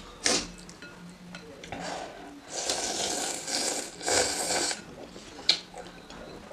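A person slurping spicy soup noodles: two long slurps, one about two and a half seconds in and a shorter one about four seconds in, with a few short sharp clicks of eating around them.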